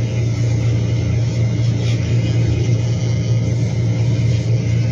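Handheld pet nail grinder's small motor running with a steady low hum while its rotating head files a dog's nail.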